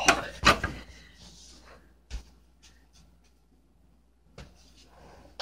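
Handling of a glass measuring cup: two sharp knocks in the first half-second, a softer knock about two seconds in, then faint taps and rubbing.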